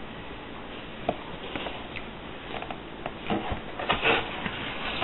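Cardboard detergent box being handled on a tabletop: scattered light taps and rustles, busier in the second half, over a steady hiss.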